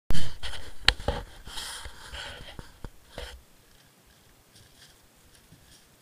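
Handling noise from an action camera as recording starts: a sharp knock, then several clicks and rubbing or scraping for about three seconds, after which it goes nearly quiet.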